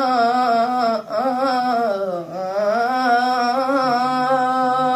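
A solo voice singing one long held note in Arabic vocal style, with wide vibrato. It breaks briefly about a second in, dips in pitch about two seconds in and climbs back to hold the note.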